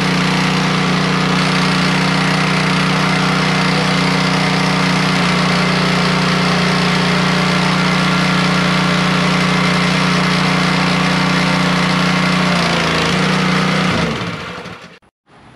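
Simpson gas pressure washer's small air-cooled engine running steadily at constant speed just after a cold start, then switched off, winding down and stopping about a second before the end.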